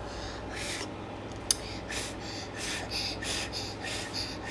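A child blowing on hot food to cool it, in a run of short puffs of breath that come faster after about two seconds. A sharp click about a second and a half in.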